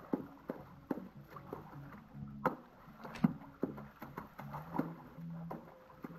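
Hands slapping and splashing pool water in a quick, uneven run of splashes, about two a second, with one louder slap a little past the middle.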